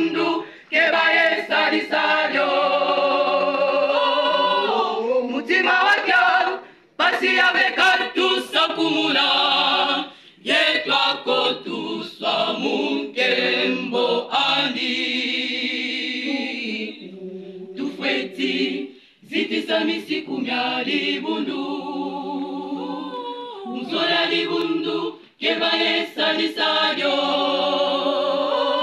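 Women's and girls' church choir singing a hymn together, unaccompanied, in long phrases with a few short breaks for breath.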